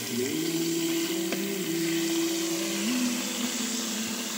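Fish frying in hot oil in a karahi over a wood fire: a steady sizzle, under a steady low hum whose pitch shifts a couple of times.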